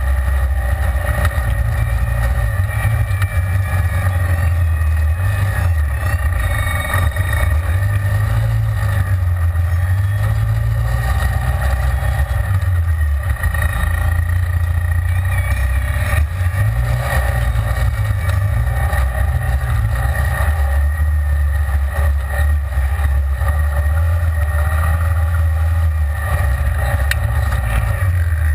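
Side-by-side UTV's engine running under way, heard from inside its open cab, its pitch rising and falling every few seconds as the throttle is worked.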